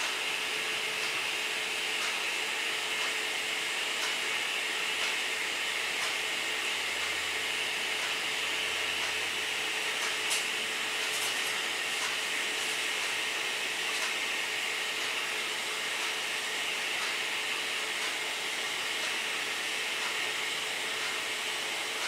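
Steady background hiss with a faint, even hum running under it, and a few faint taps about ten to thirteen seconds in.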